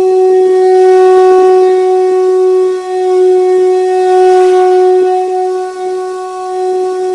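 Shankh (conch shell trumpet) blown in one long steady note, with brief dips in loudness about three and six seconds in.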